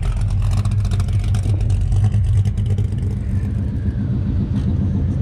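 A car engine idling close by, a steady low rumble.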